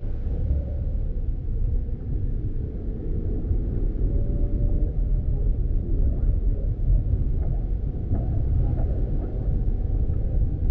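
Steady low rumble of a vehicle driving along a dirt road: engine and tyre noise.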